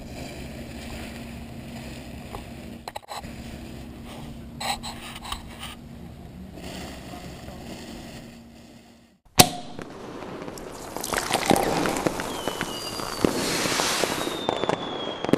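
Quiet steady background with a faint hum, then after a sudden click about nine seconds in, New Year fireworks: dense crackling and popping with whistles that slide down in pitch.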